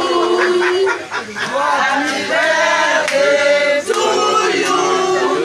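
Voices singing together in long, held, wavering notes.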